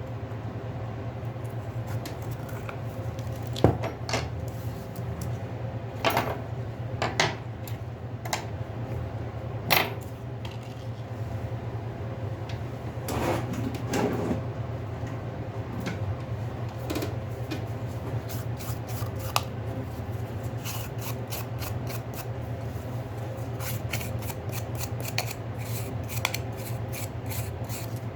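Small hand tools and smartphone parts handled on a work bench: scattered sharp clicks and light knocks, a short scraping stretch partway through, and a run of fast fine clicks in the second half, over a steady low hum.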